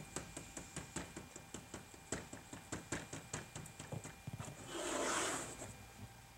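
A towel scrubbing the inside of a car door window, working along the glass edges in quick rubbing strokes, about four a second. About five seconds in there is a louder hiss lasting about a second.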